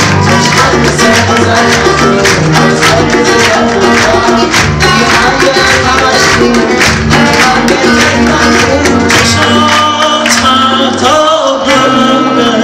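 Live band playing an instrumental passage of a Persian song, with sustained pitched lines over a steady, sharply struck beat.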